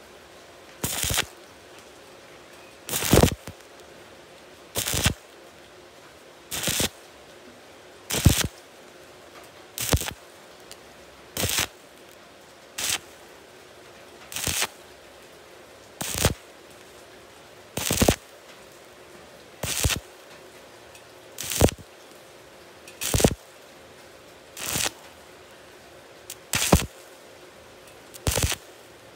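Stick-welding arc on thin galvanized steel tube, crackling in short bursts about every second and a half to two seconds as the electrode's arc is struck and broken again, building the vertical weld one puddle at a time.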